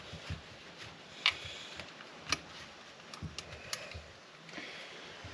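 Light, scattered clicks and taps of parts and tools being handled on a workbench during a chainsaw rebuild. The sharpest clicks come about a second in and again about two seconds in.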